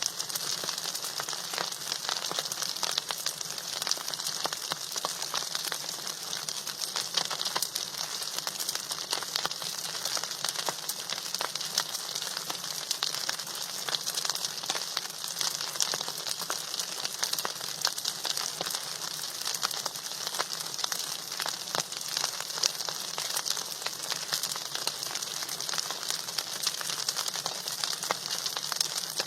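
Food sizzling and crackling steadily in hot oil in a pan, with a dense patter of small pops over a hiss.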